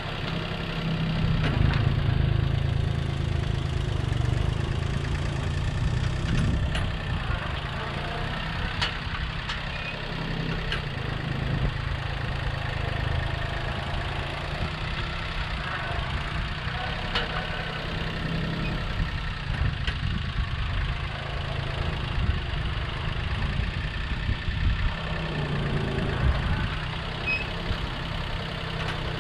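International 234 compact tractor engine running steadily while the front-end loader lifts and dumps fill, its level swelling and easing a little with the load. A few short clicks sound over it.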